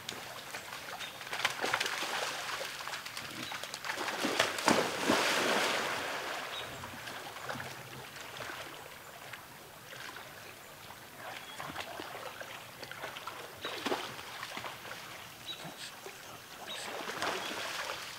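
A deer wading through a flooded creek: water splashing and sloshing in irregular bursts, loudest a few seconds in and again near the end.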